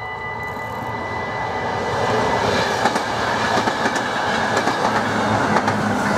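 An SNCB electric regional train passes over a level crossing, its running noise building to a loud rumble with wheel clicks over the rail joints. At the start the crossing's warning bell rings steadily, then is drowned out by the train.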